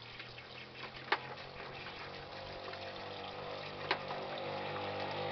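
Tap water running into a sink over live crabs while they are scrubbed with a toothbrush, with two sharp clicks. A low motor hum grows louder toward the end.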